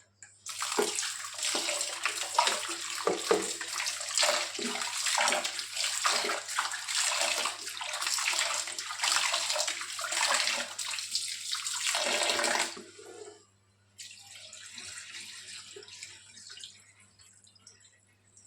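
Raw chicken pieces being washed by hand in turmeric water under a running tap, with irregular splashing and sloshing. The loud water stops about twelve and a half seconds in, and a quieter run of water follows shortly after.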